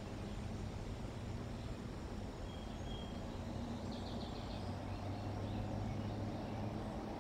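Steady outdoor background hum picked up by a wildlife camera microphone. A small bird gives a short thin chirp about two and a half seconds in and a brief rapid trill about four seconds in.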